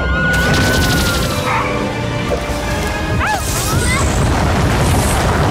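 Cartoon soundtrack: music over a deep, continuous rumbling sound effect, the giant snowball rolling toward the town, with a few whooshing, sliding sweeps.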